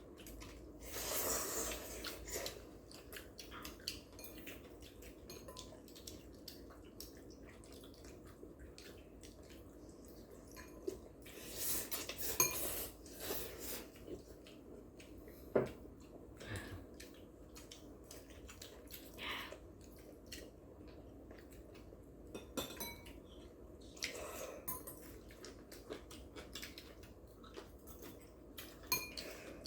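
Eating utensils clicking and scraping against bowls and plates during a meal of jjapaghetti noodles, as a series of scattered light clinks with a few longer, louder noisy stretches.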